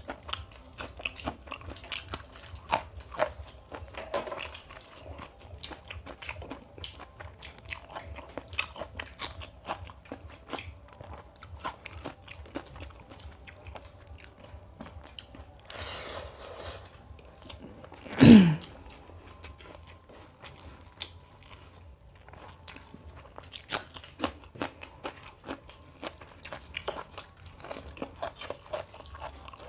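Close-miked eating of mutton biryani by hand: wet chewing and lip smacks with small clicks. About 18 seconds in comes one short, loud voice-like sound that falls steeply in pitch, just after a breathy rush.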